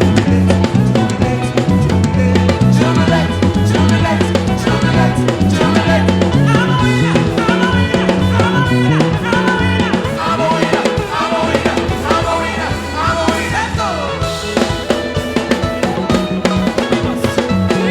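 Contemporary gospel praise band playing: a drum kit with snare and bass drum drives a steady beat over a repeating bass line, with a melodic lead line bending in pitch above it.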